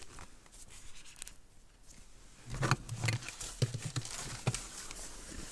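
Plastic vacuum cleaner attachments being handled and sorted: scattered light knocks and clicks, with a few dull thuds about halfway through.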